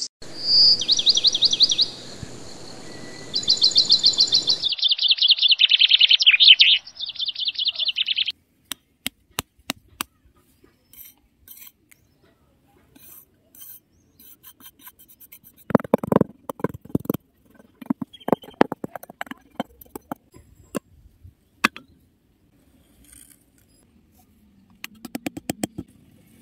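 Birdsong, rapid high chirping trills, for about the first eight seconds. Then sparse small clicks, taps and scrapes as a small metal tool works in sand and wooden sticks are set upright in it, busiest a little past the middle.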